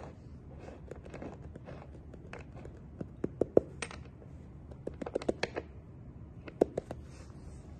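Scattered sharp clicks, light knocks and rustles of things being handled, in clusters about three, five and six and a half seconds in, over a low steady room hum.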